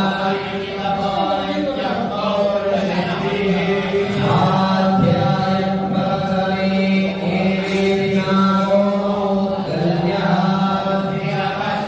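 Mantras chanted by several voices in unison on a steady pitch, with long held syllables and short pauses for breath.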